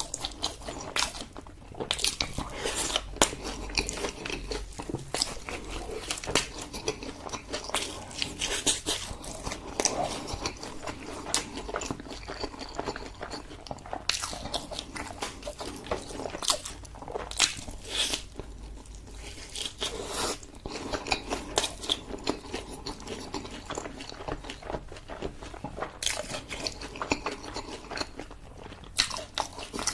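Close-miked eating: a person biting and chewing food, with many irregular sharp clicks and wet mouth sounds.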